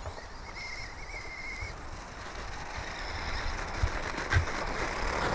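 Traxxas Rustler 2WD RC truck with a brushless motor on sand paddle tires, driving across snow: a thin wavering motor whine for about a second near the start, under a rushing noise that grows steadily louder.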